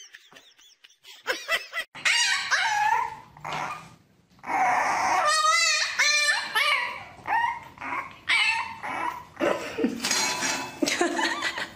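A puppy yelping and whining over and over, in high calls that rise and fall and sometimes waver, starting about two seconds in.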